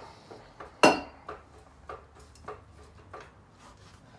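A sharp metallic clank about a second in, followed by lighter metal clicks at a steady pace of roughly one every half second.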